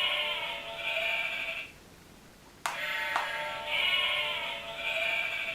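Sound-book chip playing a recorded sheep bleating through its small speaker, thin with no low end. The clip ends, then a click sets it playing again about two and a half seconds in.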